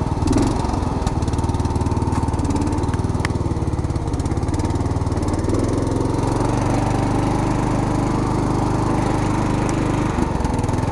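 Riding lawn tractor's small engine running steadily in gear as the tractor drives along, its throttle worked by a foot gas pedal.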